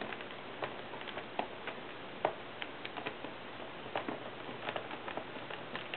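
Small screwdriver clicking and scraping on the tiny screws of a MacBook's hard-drive bracket in the battery bay as they are backed out: irregular faint clicks, the loudest about two seconds in, over a steady hiss.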